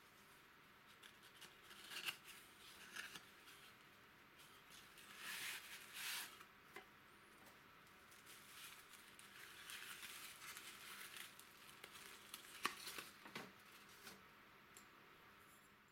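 Faint rustling and crinkling of a small cardboard box being opened and brown paper wrapping being peeled off a glass vacuum tube, with a few light taps and clicks. The loudest rustles come around five to six seconds in.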